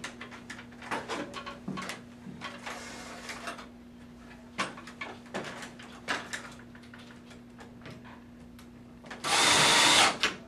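Cordless drill driving a self-drilling hex-head Tek screw through an aluminium curtain track into the wood above, in one burst of about a second near the end. Before it come scattered light clicks and knocks of handling, over a steady low hum.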